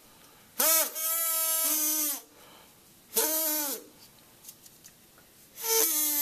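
Sound sandwich noisemaker (a rubber band stretched along a craft stick, held between two craft sticks by pieces of straw) blown three times, each time giving a pitched tone with a breathy hiss. The first blast is the longest and drops in pitch near its end; each blast bends up and then down in pitch.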